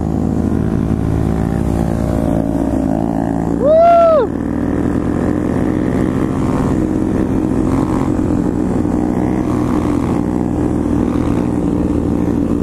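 Motorcycle engine running at a steady, cruising speed during a ride. About four seconds in comes one short call or tone that rises and falls in pitch.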